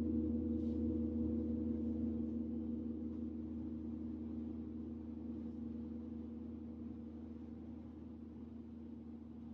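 A gong ringing on after a single stroke: several steady, deep tones over a low hum, fading slowly.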